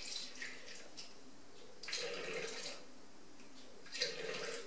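Milk poured from a carton into a Thermomix's stainless-steel mixing bowl: a faint steady pouring and splashing, a little louder about two seconds in and again near the end.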